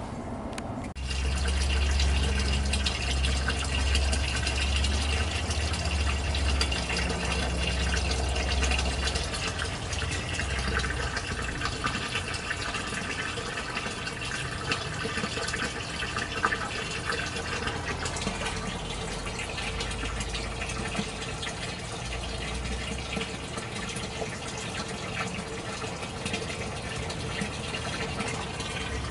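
Water pouring steadily into the flood tray of an ebb-and-flow hydroponic system as it floods. It starts about a second in, with a low hum beneath it for the first several seconds.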